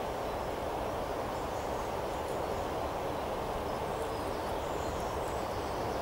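Steady outdoor rushing noise, even and unbroken, with faint high bird chirps now and then.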